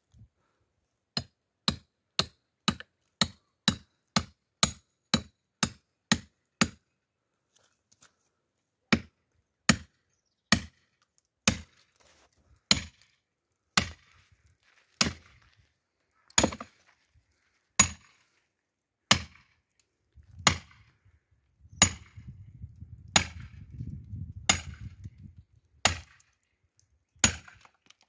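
Firewood being chopped: a run of sharp wooden strikes, about two a second at first, then slowing to roughly one every second or so. A low rumble sits under a few of the strikes in the last third.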